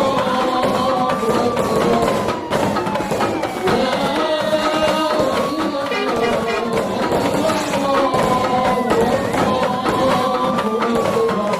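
Music with a busy percussion beat, overlaid by a wailing tone that rises and then slowly falls, repeating every two to three seconds.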